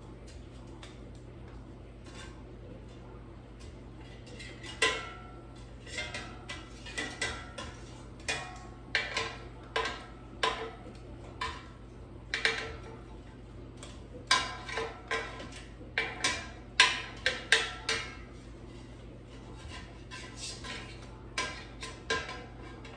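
Metal kitchen tongs clicking and clinking against the nonstick air fryer basket as chicken wings are turned over one by one. The clicks are sharp and irregular, a few a second, starting about five seconds in.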